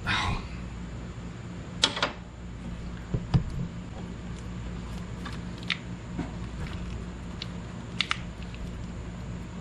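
Scattered sharp clicks and taps of hands working the plastic electrical connector off a throttle position sensor, squeezing its release tab, over a steady low hum.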